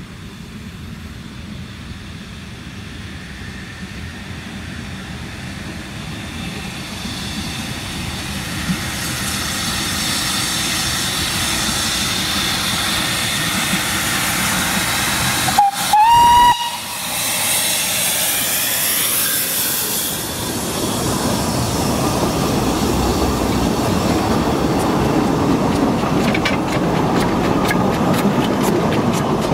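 Narrow-gauge steam locomotive and its train running past, growing louder, with a steady hiss of steam. About halfway through, the locomotive gives one short blast on its steam whistle, which slides up to its pitch.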